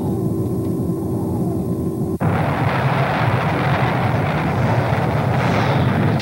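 Anime sound effects: a starship bridge's steady low hum with a held tone, cut off suddenly about two seconds in by a loud rushing rumble for the White Comet bearing down on a planet.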